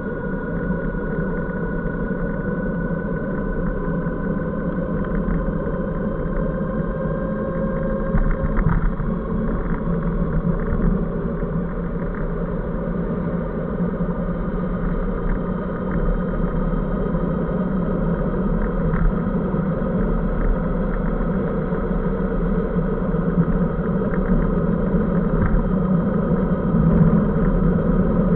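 Steady road and wind rumble from riding a 500 W electric bicycle through city traffic, with thin whining tones that glide slightly in pitch and shift about eight seconds in.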